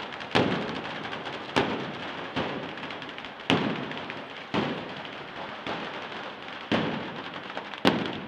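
A 'batteria alla bolognese' daytime firecracker display: a rope-strung chain of firecrackers crackles steadily, with about eight loud bangs going off roughly once a second.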